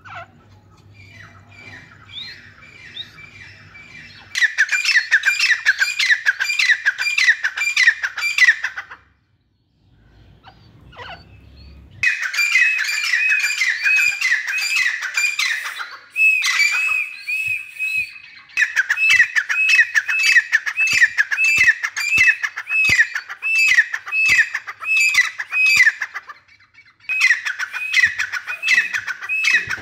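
Grey francolin calling: loud, rapid series of shrill repeated notes, about two to three a second, in several bouts with short breaks between them. The calls are faint at first and come in loud after about four seconds.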